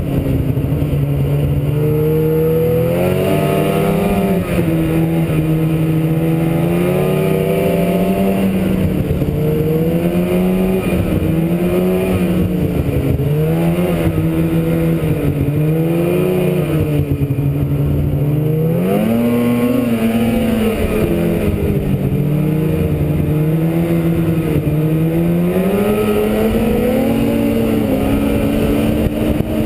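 Polaris Switchback Pro-R 800 snowmobile's two-stroke twin engine running under way, its pitch rising and falling every few seconds as the throttle is opened and eased off.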